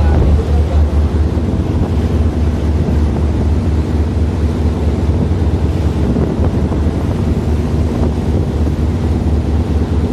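A boat engine drones steadily at a constant speed, with wind buffeting the microphone.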